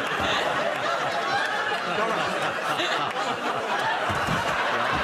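Studio audience laughing together, a steady, continuous wash of many voices.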